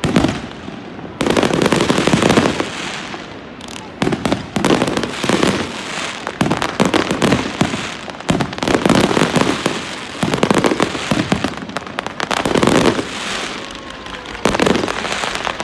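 Aerial fireworks display: shells bursting one after another, a loud bang every second or so, with dense crackling between the bangs.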